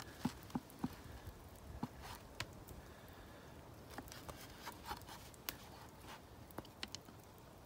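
Knife sawing through the hard crust of a Dutch-oven-baked loaf on a wooden cutting board: irregular crackles and scrapes as the crust breaks under the blade.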